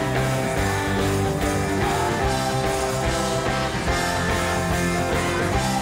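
Live band playing rock music, with guitar.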